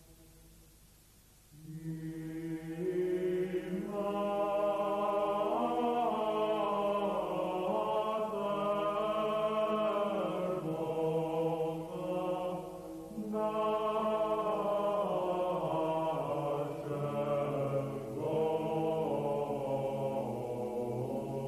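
Background music of voices chanting a slow melody over a held low note. It starts about two seconds in and breaks off briefly in the middle.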